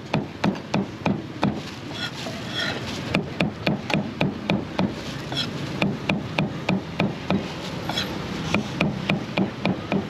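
Meat cleaver chopping grilled beef on a thick round wooden chopping board: sharp, even knocks about three to four a second, in runs broken by brief lighter stretches.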